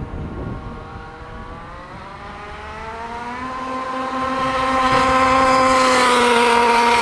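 Small 34cc two-stroke gas engine of a 1/5-scale FG Modellsport Evo RC car revving up over about two seconds, then holding at one steady pitch instead of climbing further, with a slight dip near the end. This is the fault being shown: past half throttle the engine goes flat and gives only about half its power.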